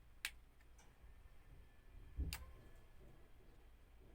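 Two sharp clicks about two seconds apart from handling a gimbal stabilizer selfie stick tripod, the second with a dull knock.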